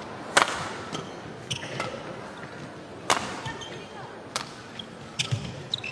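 Badminton rally: racket strings hitting the shuttlecock with sharp cracks about a second apart. The hardest hits, smashes, come about half a second in and around three seconds in, heard over the echoing hum of an indoor arena.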